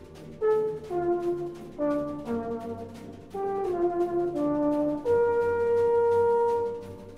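Brass band playing a slow melody, most likely the euphonium solo, over a soft, steady percussion rhythm that imitates a train. A phrase of short falling notes ends in a long held note about five seconds in.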